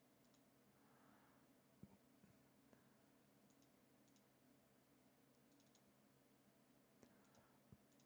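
Near silence with a few faint, scattered computer mouse clicks, a small cluster of them near the end.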